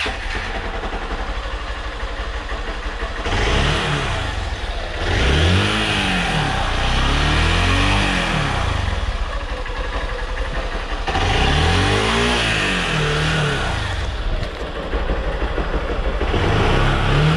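Honda Bros 160's single-cylinder engine on its stock exhaust, idling and then revved in several short throttle blips, each rising and falling in pitch, with steady idle between them.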